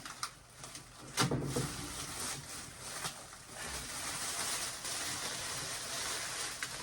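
Tape being ripped off a resin tabletop: rough tearing and rustling, with a sharp knock about a second in.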